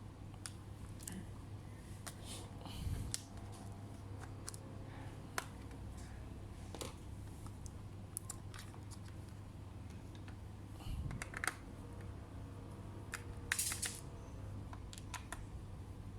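Scattered small clicks and taps of tools and hands working on a laptop's plastic case and screws during disassembly, over a steady low hum.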